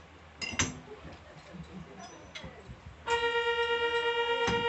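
Cable car's electric departure buzzer: a single steady pitched tone with a fast flutter, starting abruptly about three seconds in and held, signalling that the car is about to set off. Before it come a few faint clicks and short chirps.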